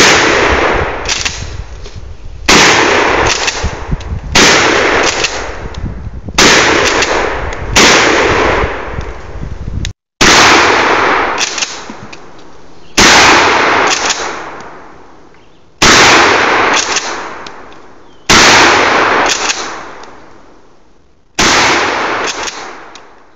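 Shotgun firing 2¾-inch one-ounce slugs, ten loud shots at a steady pace about two to three seconds apart, each followed by a rolling echo that dies away.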